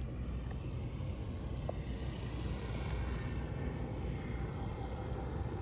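Steady low outdoor background rumble with a faint even hiss above it, with no distinct event standing out.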